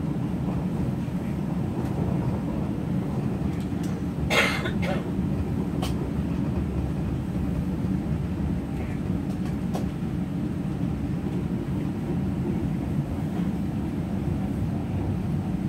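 Steady low rumble inside a Minuetto diesel multiple unit running along the line, from its engine and its wheels on the rails. A brief sharp noise comes about four seconds in, with a couple of faint clicks later.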